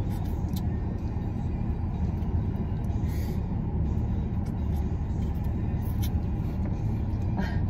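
Steady low rumble of an idling car heard inside its cabin, with a few faint short clicks.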